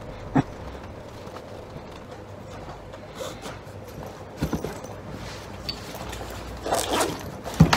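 Leather riding boot being handled on a workbench while elastic laces are threaded through its eyelets: rustling and scuffing with a few sharp knocks, the loudest cluster near the end.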